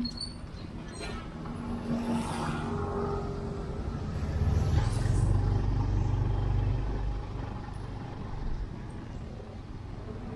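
A motor vehicle drives past close by: its low engine rumble builds, is loudest in the middle, and fades away.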